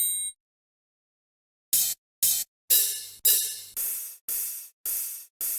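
Hi-hat and crash cymbal one-shot samples from an Amapiano drum pack, played one after another. The ringing tail of a bell-like metallic hit dies away, then after about a second and a half of silence come eight separate cymbal hits about half a second apart, each fading quickly.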